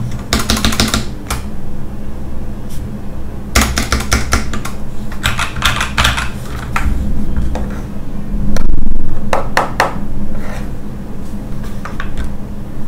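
Typing on a GK61 60% mechanical keyboard: key clacks in several bursts, on a board whose space bar rattles. A louder low thump about two-thirds of the way through.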